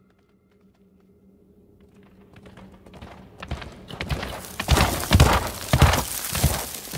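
A wildebeest stampede approaching down a gorge: a rumble of many hooves that builds from faint to loud over a few seconds, with heavy irregular thuds of hooves at its loudest near the end.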